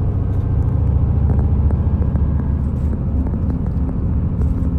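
Engine and road rumble heard from inside a moving bus, loud and steady, with the engine note rising a little after about three seconds.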